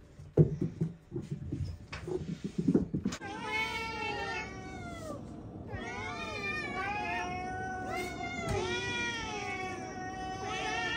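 Several domestic cats meowing over one another, many overlapping rising-and-falling meows without a break, from hungry cats crowding around their empty food bowls. A few knocks and thumps come in the first three seconds, before the meowing starts.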